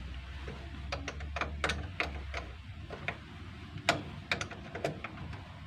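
Irregular metallic clicks and taps of a hand tool working on a jeepney's battery terminal clamps and cables, about a dozen sharp ticks spread over several seconds, as the battery is being disconnected.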